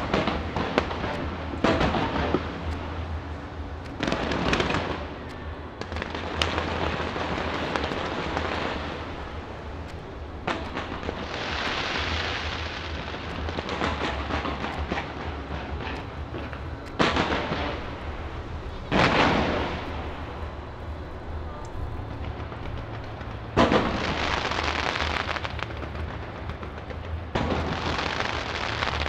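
New Year fireworks fired from the Taipei 101 skyscraper: a run of sharp booming bursts, some in quick succession, each followed by a long hissing crackle as the shells break.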